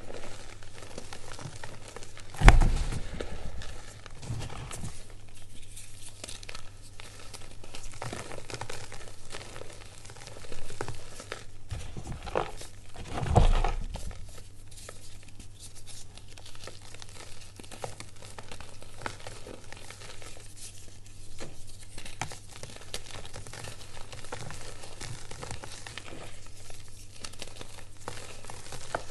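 Reformed gym chalk being crushed and crumbled by hand into powder: a steady crunchy, powdery crumbling. Two heavier thuds stand out, one about two and a half seconds in and one around thirteen seconds.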